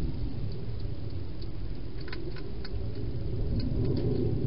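Hedgehog eating from a bowl inside a plastic feeding box: several small, crisp crunching clicks, mostly in the second half, over a steady low rumble.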